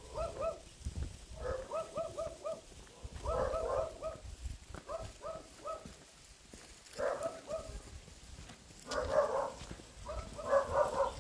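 A dog barking repeatedly in quick runs of three or four barks, with short pauses between the runs.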